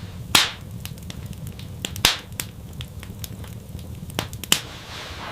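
Wood fire crackling in a stove, with irregular snaps and three loud pops about half a second, two seconds and four and a half seconds in, over a low steady rumble.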